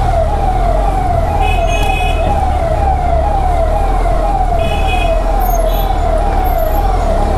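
A siren with a falling wail, repeating evenly about two and a half times a second over a steady low rumble of engines in slow traffic, with two short horn beeps.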